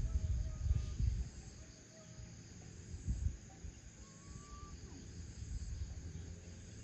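Rural farmyard ambience: insects chirring steadily, with a few faint, thin bird calls and a low rumble in the first second or so.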